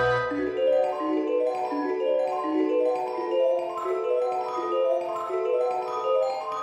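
Background music: a light melody of notes played on tuned mallet percussion, stepping up and down at an even, unhurried pace, with low held bass notes fading out in the first second.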